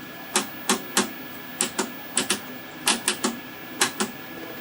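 Rotary channel selector on a vintage Packard Bell tube television clicking through its detents: about a dozen sharp clicks in uneven runs of two or three, over a faint steady high tone.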